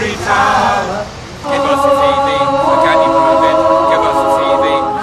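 A group of people singing together unaccompanied. A voice phrase opens it, and from about one and a half seconds in many voices hold long sustained notes in chorus.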